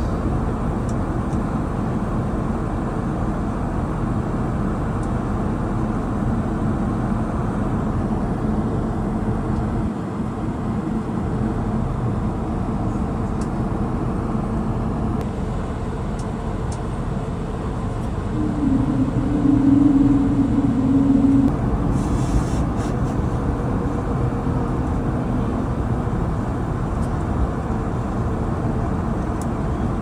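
Steady rumbling cabin noise inside an Airbus A220-300 on the ground after landing, with engine and air-system noise. For about three seconds past the middle, a louder steady hum rises over it.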